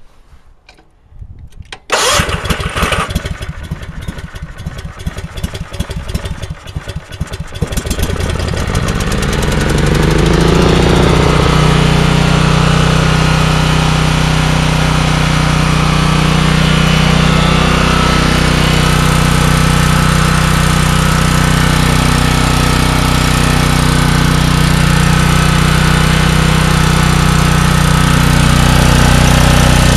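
Cold start of an electric-start generator engine. About two seconds in, the starter cranks it for roughly six seconds, the engine catches and speeds up, then it settles into steady running.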